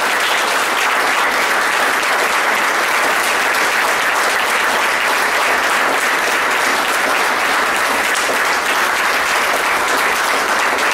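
A roomful of people applauding, steady and unbroken clapping.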